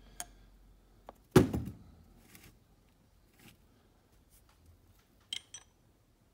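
Engine parts handled on a workbench: one loud knock about a second and a half in, with lighter taps and clicks scattered after it and two sharp clicks near the end.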